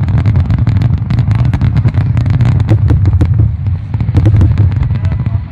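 A rapid barrage of aerial firework shells bursting, many sharp reports coming close together over a continuous deep rumble.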